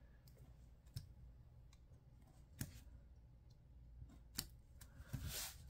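Faint clicks and scratches of a hand-held craft knife blade cutting through paper: a few sharp ticks spaced a second or more apart, then a short scratchier stroke near the end.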